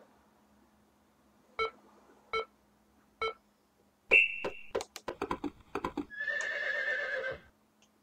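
Computer game sound effects: three short beeps evenly spaced under a second apart, then a single higher, longer beep about four seconds in. A quick run of clicks follows, then a horse whinny lasting just over a second.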